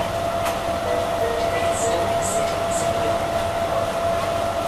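Automated people-mover shuttle car running along its guideway, heard from inside the cabin: a steady running rumble with a constant whine. Three short high squeaks come about two seconds in.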